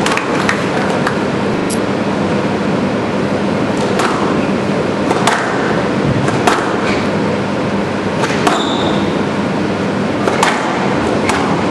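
Squash rally on a glass court: the ball smacking off rackets and the walls in irregular sharp cracks a second or so apart, over a steady background hiss of the hall, with a brief squeak about eight and a half seconds in.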